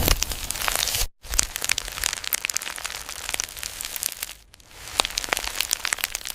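Dense crackling and crinkling made of many sharp clicks, breaking off for a moment about a second in.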